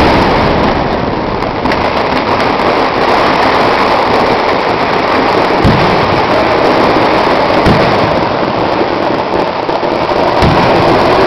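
A dense barrage of firecrackers from a Kerala temple fireworks display (vedikkettu), the explosions so rapid that they merge into one continuous rumbling din. A few heavier bangs stand out now and then.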